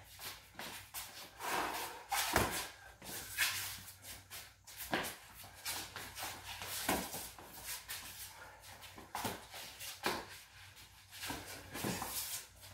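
Boxing sparring on a concrete floor: irregular slaps and thuds of gloves landing, with sneakers shuffling between them. The loudest hit comes about two and a half seconds in.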